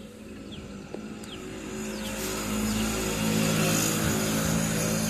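A steady engine-like hum, slowly swelling louder over a few seconds, with small birds giving repeated short, falling chirps.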